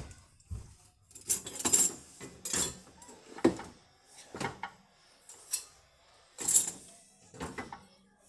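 Dishes, cutlery and pots clinking and knocking as they are set into a dishwasher's racks: a series of sharp clatters, roughly one a second, some with a bright metallic ring.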